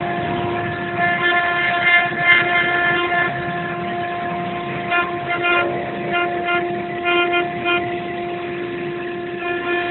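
Rotary-axis CNC router spindle running with a steady whine while its bit carves a relief into a turning wooden baluster. Higher whining tones come and go several times as the cutter works.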